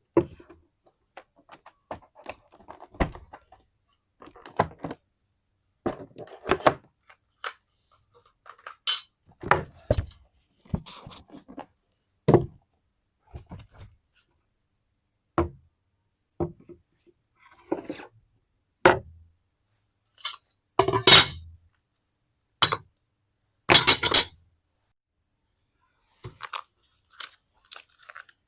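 Hands handling a perfume box and bottle: a string of separate knocks, clinks and short rustles or scrapes every second or two, with the loudest handling noises around two-thirds of the way through.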